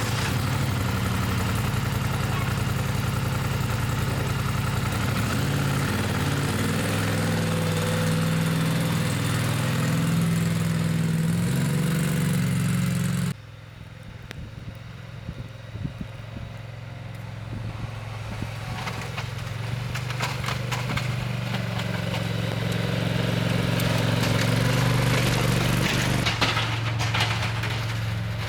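An engine running, its note shifting now and then. A loud hiss lies over it at first and cuts off abruptly about halfway through, after which the engine gradually grows louder.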